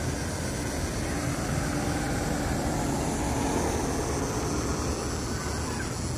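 Steady engine and road noise from a vehicle moving through street traffic, with a faint hum that swells for a few seconds in the middle.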